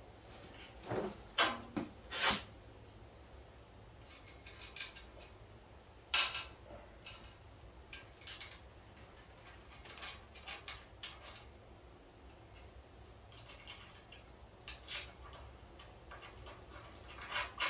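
Scattered, irregular metal clicks and clinks of cab-mount bolts, washers and nuts being handled and threaded by hand.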